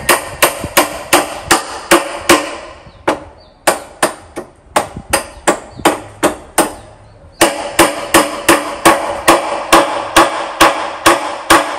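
Hammer driving small nails into a wooden tabletop: steady, rapid strikes about three a second, with short pauses about three seconds in and again about seven seconds in.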